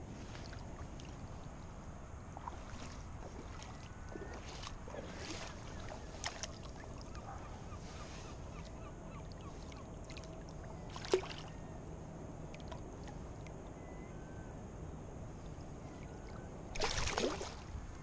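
Shallow water lapping and sloshing softly with small splashes around a fish held by hand for release, with a single sharp tick midway and a louder splash near the end as the fish kicks free.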